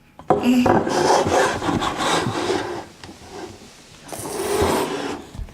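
A young child making raspy, breathy funny noises with his voice: one long rasping stretch of about two and a half seconds, then a shorter one about four seconds in.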